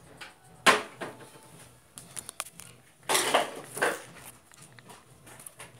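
Coloured pencils being handled on a table: a sharp knock under a second in, a few small clicks, then a longer rattling clatter a little past halfway.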